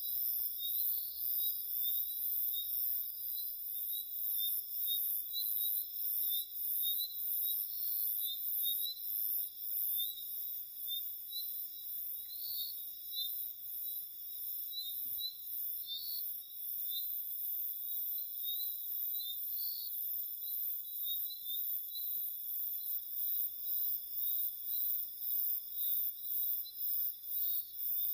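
Night insect chorus: crickets trilling steadily with small repeated chirps, over a very high-pitched chirring that pulses regularly.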